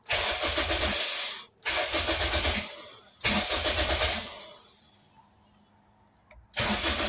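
Starter motor cranking a Toyota 2ZZ-GE 1.8-litre four-cylinder engine in four bursts of about a second each with short pauses between them, the engine not catching.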